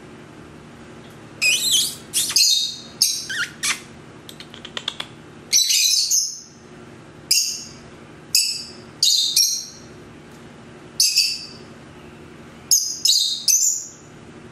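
Pet lovebirds giving short, loud, high-pitched chirping calls, about a dozen in irregular clusters starting about a second and a half in, with a few faint ticks between calls around four to five seconds in. A steady low hum runs underneath.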